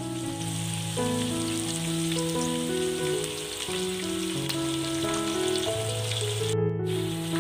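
Chicken pieces sizzling as they fry in hot oil in a wok, under background music of slow held notes that change about every second. The sizzle cuts out for a moment near the end.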